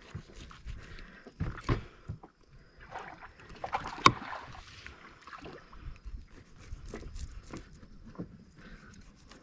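Knife scraping the scales off a fish on a plastic cutting board: irregular rasping scrapes and light knocks, with a longer scratchy run and one sharp knock about four seconds in.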